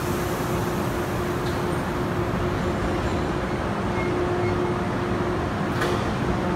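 Electric multiple-unit train pulling slowly into a station platform: a steady running noise with a low hum, and a single sharp click near the end.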